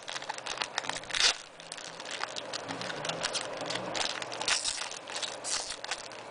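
Foil trading-card pack wrapper crinkling and tearing as it is pulled open by hand, with a string of crackles and a louder one about a second in.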